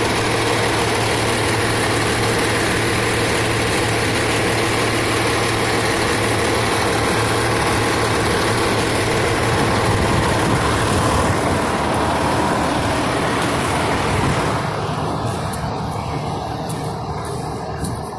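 Fire engine's diesel engine idling close by, a steady low running sound that grows fainter near the end.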